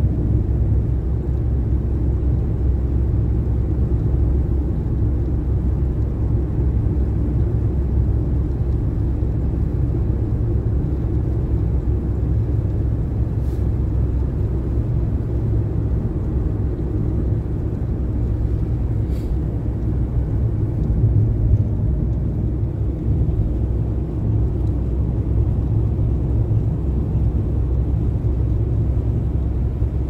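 Steady low rumble of a car driving on a snow-covered highway, heard from inside the cabin: tyre and road noise with engine hum.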